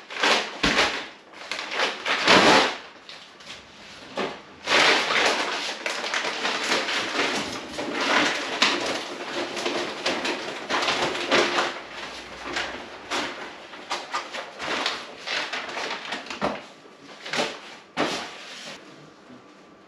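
Paper flour sack rustling and flour being scooped and scraped out for weighing, with scattered knocks and clatter.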